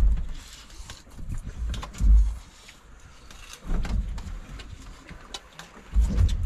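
Wind buffeting the microphone in about four deep, rumbling gusts, with small scattered clicks and knocks between them.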